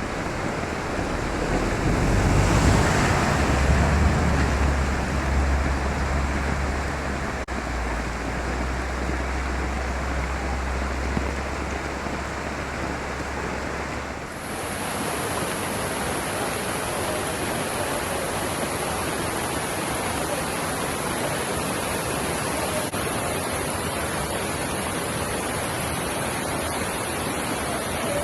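Steady rushing storm noise from a hurricane, an even hiss of wind and water on a phone microphone. A low rumble sits under it through the first half, and the sound changes abruptly about halfway through.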